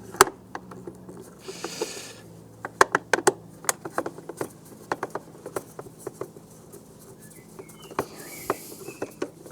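Irregular light clicks, taps and scrapes of small metal screws and hand tools being handled against the pressure washer's housing, with a sharp click just after the start and a couple of brief soft hisses.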